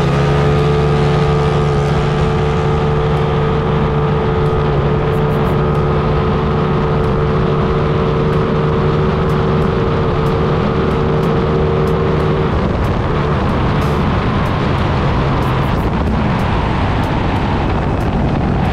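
Carburetted Vespa Sprint two-stroke engine with a 68 mm big-bore piston running hard at high revs, a steady loud note under full throttle. About twelve seconds in the engine note breaks off and falls away as the throttle is eased, leaving mainly wind and road rush.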